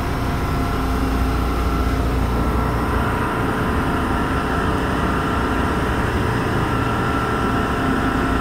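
Steady hum of a stationary Busan Metro Line 1 subway car's onboard electrical equipment and ventilation, heard from inside the car. Several thin, steady whining tones sit over the hum, and a deep rumble eases off about three seconds in.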